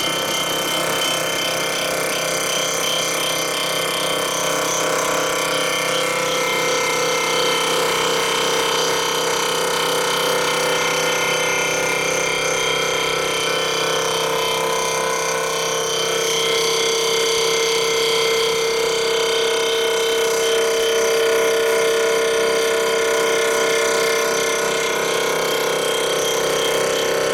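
A block surfacing machine's spinning cutter head is machining the cast-iron deck of a Ford four-cylinder flathead block, giving a steady loud whine with a strong tone. The tone steps slightly higher and louder about sixteen seconds in. This is a high-speed pass at 1800, too fast for the cutter: it runs hot and leaves chatter on the deck.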